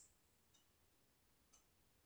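Near silence: room tone with two faint ticks.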